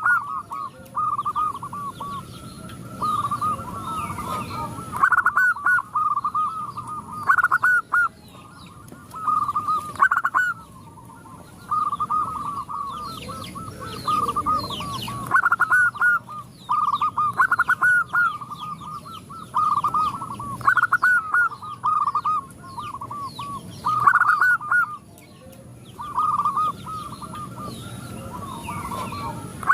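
Several zebra doves cooing, their soft stuttering phrases repeating every few seconds and overlapping one another.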